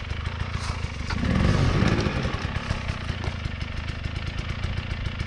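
KTM EXC 300 two-stroke enduro engine running at low revs with rapid, even firing pulses, getting louder for a moment about a second in as the throttle is opened, then settling back.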